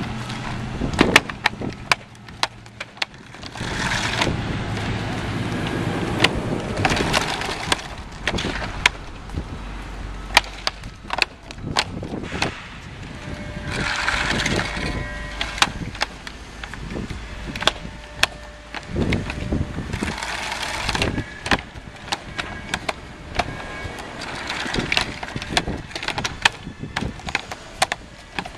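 Interlocking plastic EventDeck Ultra turf-protection panels being laid on asphalt: many sharp clacks and knocks as panels are dropped and snapped together, with intermittent scraping as panels slide over the pavement.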